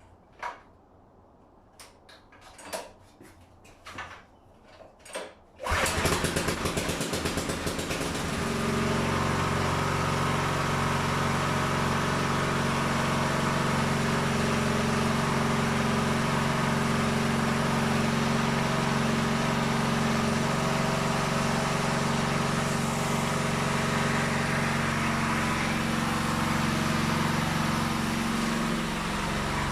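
A few short knocks, then about six seconds in an Ayerbe 208 cc petrol generator engine starts suddenly. It runs unevenly for a couple of seconds, then settles into steady running.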